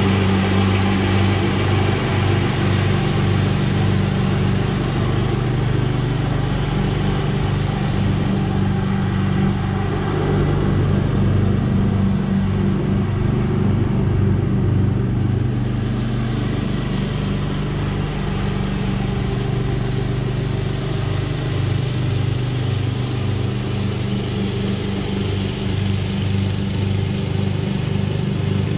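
Craftsman LT1000 lawn tractor's 12-horsepower flathead engine running steadily with an even pulsing note as the tractor is driven. It is a little quieter and duller midway, while the tractor is farther off.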